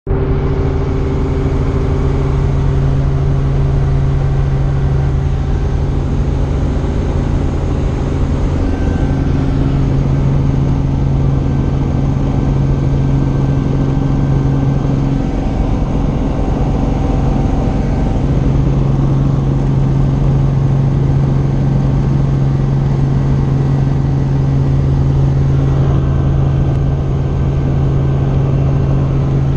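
Helicopter in flight, its engine and rotors running with a loud, steady drone and a constant low hum.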